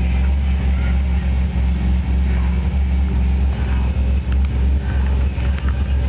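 Car engine idling, a steady low rumble heard from inside the cabin.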